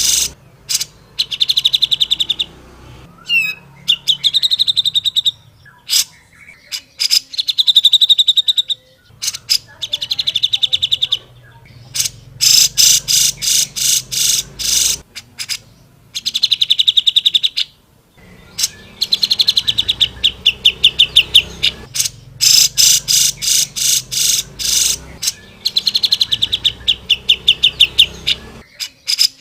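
Grey-cheeked bulbul (cucak jenggot) singing loud, harsh chattering phrases. Each is a rapid run of repeated notes or a fast trill lasting a second or more, and they come again and again with short pauses between.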